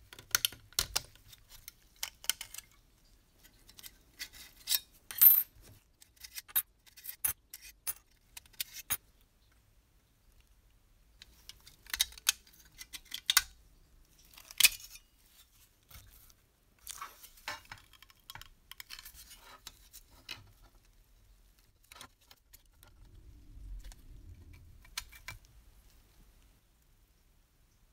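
Thin rusty sheet-metal parts of a 1940s Fleischmann clockwork toy locomotive being handled and worked apart by hand: scattered small metallic clicks and clinks, with a soft rubbing near the end.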